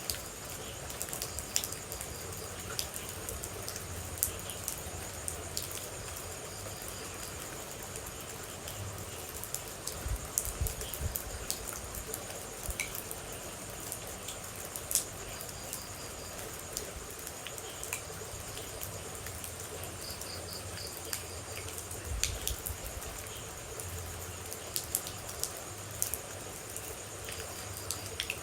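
Steady rain with water droplets dripping and pattering in irregular, sharp drops, over a continuous high insect chirring and a few short high chirps.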